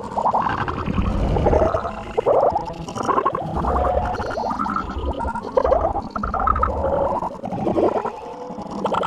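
Heavily distorted, layered cartoon sound clip: warbling, gurgling pitch-bent sounds in choppy bursts that repeat about once a second.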